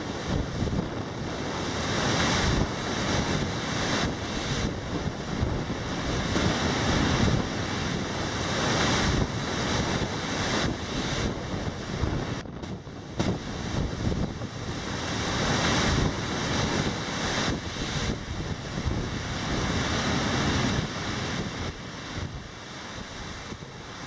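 Heavy storm surf crashing onto a shingle beach and stone breakwater, swelling and easing in surges every few seconds. Strong wind buffets the microphone throughout.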